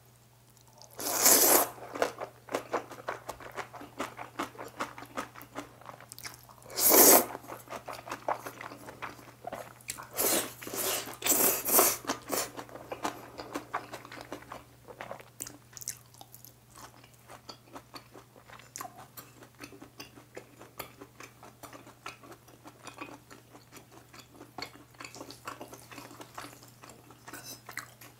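Close-miked eating of black-bean-sauce instant noodles: noodles slurped in and chewed with wet clicking mouth sounds. Loud slurps come about a second in, around seven seconds, and twice between ten and twelve seconds.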